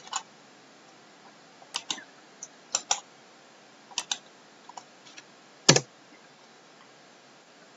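Computer mouse and keyboard clicks, about a dozen sharp ones scattered and mostly in close pairs, the loudest about three-quarters of the way through.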